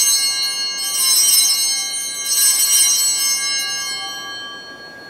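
Altar bells rung at the elevation of the consecrated host: a clear, high, many-toned ringing, shaken again about a second in and once more about two and a half seconds in, then dying away near the end.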